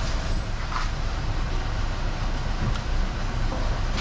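Steady low rumble of road traffic passing close by.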